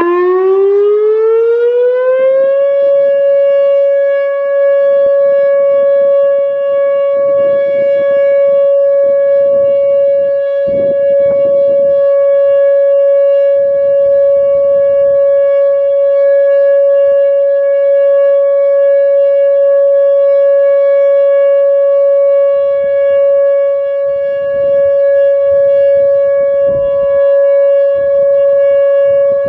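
Whelen WPS-2908 electronic outdoor warning siren switching on: its tone rises in pitch over about two and a half seconds, then holds one loud steady tone for the full-system test. Wind gusts buffet the microphone underneath.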